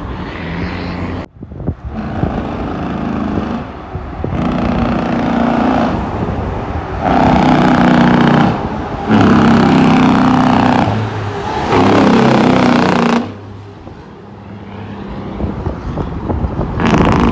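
Heavy diesel truck engine running under load. It goes in loud, level stretches broken by brief dips, and eases off for a few seconds near the end.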